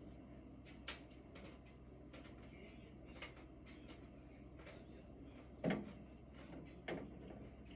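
Soft thump of a great tit landing on the window ledge close to the microphone, followed about a second later by a smaller knock from the bird on the ledge. A few faint ticks come earlier over a low steady hum.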